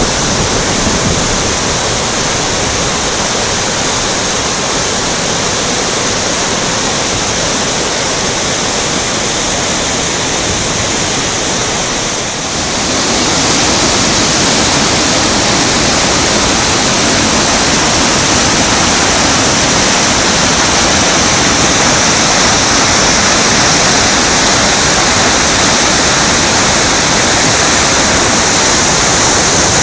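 Muddy river in flood rushing in whitewater rapids over and between boulders: a loud, steady rushing of water. It dips briefly about twelve seconds in, then carries on a little louder.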